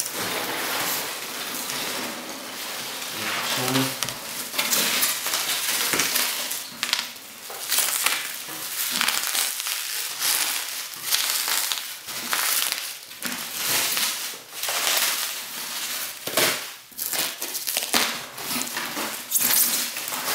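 Styrofoam packing peanuts and plastic bubble wrap crunching and crinkling as hands dig through a packed cardboard box, in an uneven run of crackles and rustles.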